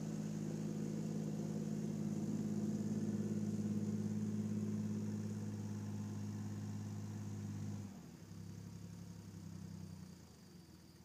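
Bombardier MPV-20 tractor's three-cylinder diesel engine running steadily as the tractor drives through the snow, dropping to a lower, quieter note about eight seconds in.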